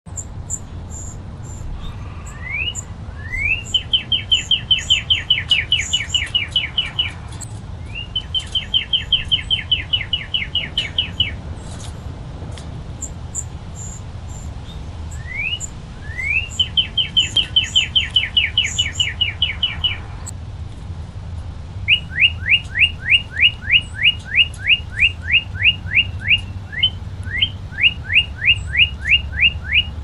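Male northern cardinal singing four loud phrases, each opening with a rising slurred whistle or two and running into a fast series of repeated notes; the last phrase is a slower series of clear down-slurred whistles, about three a second. A steady low hum and faint high chips lie underneath.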